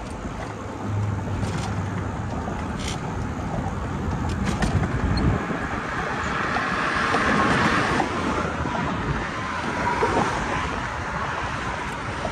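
Road traffic passing on a multi-lane causeway, heard through wind buffeting the microphone of a camera carried on a moving bicycle. The noise swells a little past halfway through.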